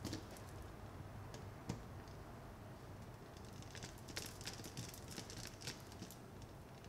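Faint clicks and light scraping as a small screwdriver turns the terminal screws of a plastic plug and the plug parts are handled. There is a sharp click at the start and another a little under two seconds in, then a run of small ticks and scrapes in the second half.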